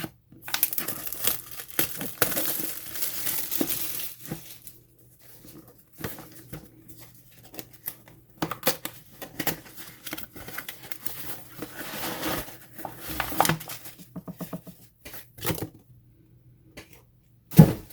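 Product packaging being torn open and handled: tearing and crinkling of packaging, a long stretch of it in the first few seconds, then scattered rustles and clicks, with a single loud thump near the end.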